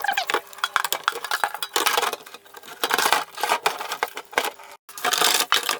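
Irregular clicking, knocking and scraping from a washing machine's detergent dispenser drawer being cleaned out by hand.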